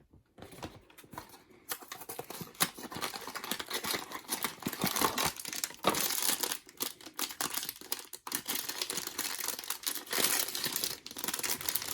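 Blind-box packaging being torn open and the foil bag inside crinkled and ripped: a continuous run of crackling and tearing, busier from about two seconds in.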